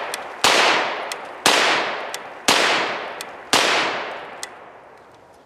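Trailblazer Pivot folding 9mm carbine fired four times at about one shot a second, each shot sharp with a tail that rings off and fades; the last shot dies away about a second and a half before the end.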